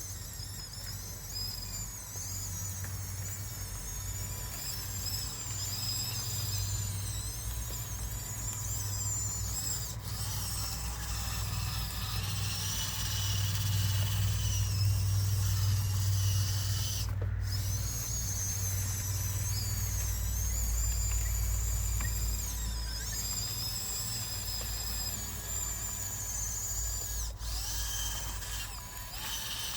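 Small electric drive motors and gearboxes of a Huina 1554 radio-controlled bulldozer whining, the pitch wandering up and down as it drives, over a steady low rumble.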